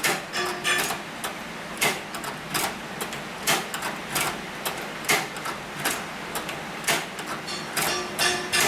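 Hand-crank leather sewing machine stitching slowly, with a sharp mechanical clack at each stitch, a little over one a second and slightly uneven.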